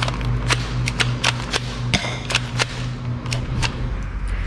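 A run of about a dozen sharp, irregular clicks or snaps, roughly three a second, over a steady low hum.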